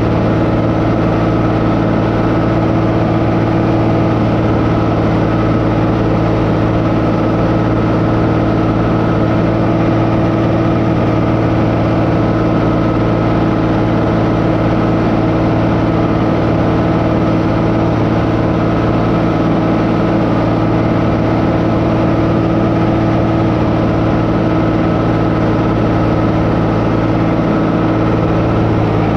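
An engine running steadily at one speed, its pitch and loudness unchanging throughout.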